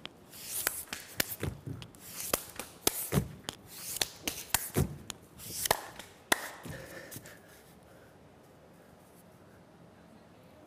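Bare hands and feet slapping, tapping and thudding on a stage floor mat during an acrobatic floor routine: a quick, irregular run of sharp knocks for about seven seconds, then it goes nearly quiet.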